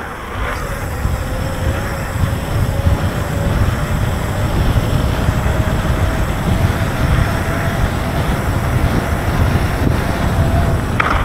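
Wind buffeting the microphone and mountain-bike tyres rolling fast down wet asphalt, with a faint steady hum that rises slowly in pitch as speed builds.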